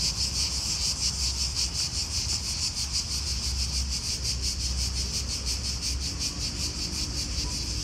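A chorus of insects chirring steadily in a fast, even pulse, high-pitched, over a low steady rumble.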